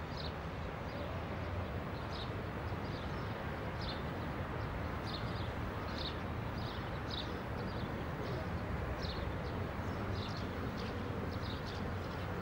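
Outdoor city ambience: a steady low hum of distant traffic, with small birds chirping in short high calls, two or three a second.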